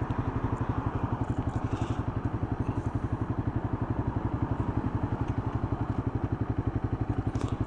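Motorcycle engine and exhaust running steadily at low revs, a rapid, even pulsing that holds its pace throughout.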